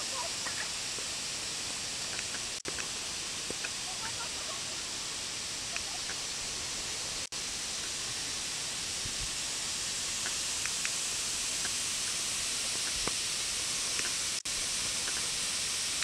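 Waterfall's steady rush of falling water, an even hiss that cuts out for an instant three times.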